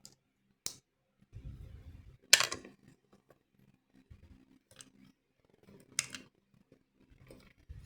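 LEGO bricks clicking as they are handled and pressed together: a few sharp plastic clicks, the loudest about two and a half seconds in and another about six seconds in, with faint handling noise between.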